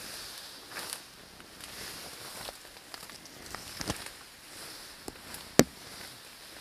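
Reed stems and leaves rustling and scraping against the camera and clothing as someone pushes through a dense reed bed, with one sharp click about five and a half seconds in.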